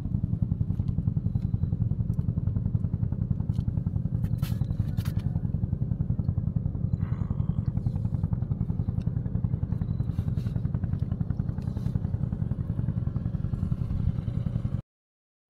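A small engine running steadily: a low, even rumble with a fast regular pulse.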